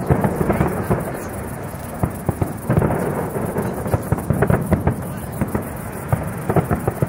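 Fireworks display: many sharp bangs of bursting shells in quick succession over a continuous crackling hiss, heaviest near the start and again about three seconds in.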